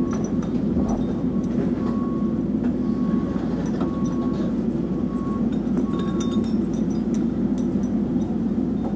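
Excavator engine running steadily, heard from inside the cab, with scattered light metallic clinks from the lifting chain hanging off the machine. A faint short beep repeats about once a second through the middle.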